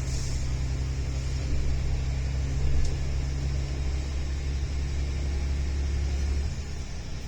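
Steady low rumble of a passenger train running along the line, heard from inside the carriage. A brief click comes about three seconds in, and the deep rumble eases near the end.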